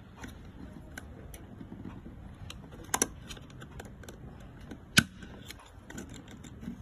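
Light plastic clicks and taps from a Mercedes-Benz W166 rear AC vent grille as its louvres and a repair-kit part are worked into place by fingers and a small screwdriver. There are two sharper snaps, about three and five seconds in, and the second is the loudest.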